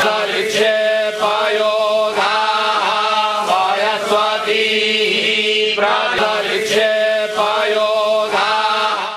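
Devotional Hindu mantra chanting, voices holding long pitches over a steady low drone. It starts and cuts off abruptly.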